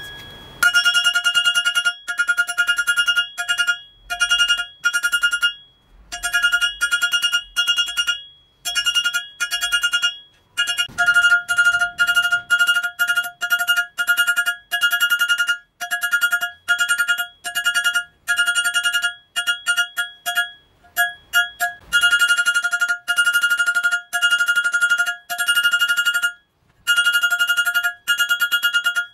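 Hand hammer striking hot rebar on a makeshift metal-block anvil to draw out a tong rein's taper: quick runs of blows, several a second, each with a clear bell-like ring, broken by short pauses.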